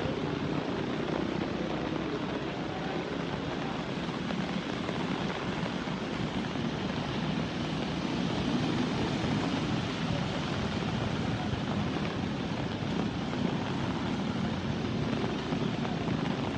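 Steady rushing noise of a river in flood, a broad even rumble of fast-moving muddy floodwater with no break.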